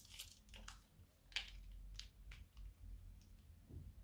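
A plastic piping bag full of slime squeezed by hand: faint crinkles and a few small clicks, the sharpest about a second and a half in.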